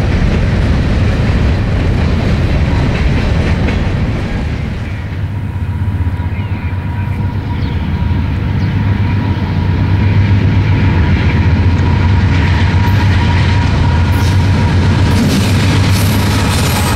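A freight train of covered hoppers rolling past with a steady rumble and clatter of wheels on the rails. The sound dips about five seconds in, then a CSX diesel-led double-stack intermodal train approaches and passes close, its locomotives' low drone growing louder.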